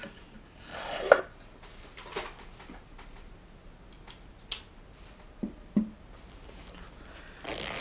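Tabletop handling noises: a small wooden box is slid and set aside with a sharp knock about a second in, then a few light clicks and taps as a zippered fabric knife pouch is handled.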